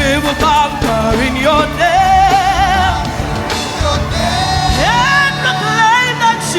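Live contemporary gospel praise music: singing with vibrato over a band with drums.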